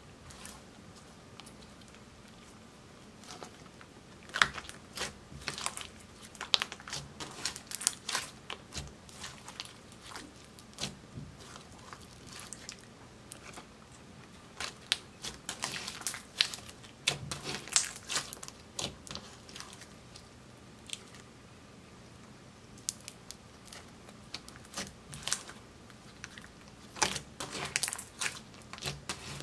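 Hands squeezing, folding and stretching a large mass of glossy clear slime with red makeup and glitter mixed in: irregular sticky pops, clicks and crackles in clusters, with a couple of brief quieter pauses.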